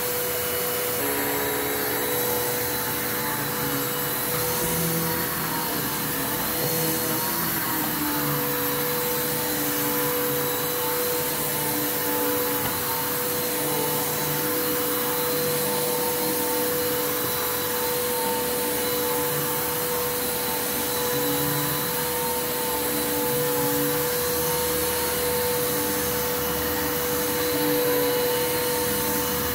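Bissell Lift-Off Revolution Turbo upright vacuum cleaner running, a steady motor whine at one pitch over the rush of air, as it is pushed back and forth over carpet and the edge of an area rug.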